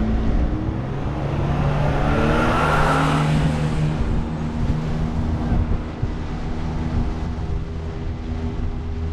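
Bass boat's outboard motor accelerating hard from the start, its pitch rising for about three seconds, then running steadily at speed, with wind and water rushing past.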